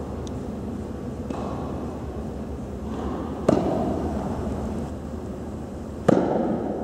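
Two tennis serves: a racket strikes the ball sharply about three and a half seconds in and again near the end, each hit echoing in an indoor court hall, over a steady background hiss.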